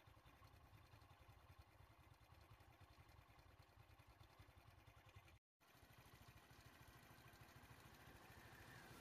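Near silence: a faint, steady low rumble that drops out completely for a moment about halfway through.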